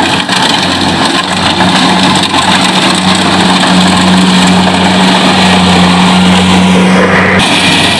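Kubota combine harvester running while cutting ripe rice, its diesel engine and machinery giving a loud, steady hum with a strong low drone. The sound changes abruptly near the end, the drone dropping out and a brighter hiss taking over.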